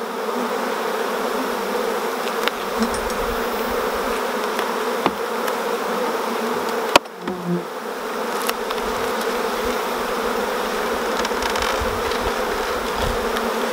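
A honeybee colony buzzing steadily around open hive boxes, a dense, even hum. A few sharp clicks of wooden hive frames being handled cut through it, the sharpest about seven seconds in.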